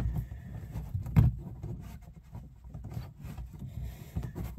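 Hand pressing a rubber grommet into a drilled hole in a plastic dash panel: light scuffing and knocking on the plastic, with one louder thump about a second in.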